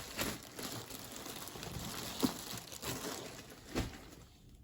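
Packaging being handled and crinkled, with a few faint taps and clicks, fading out near the end.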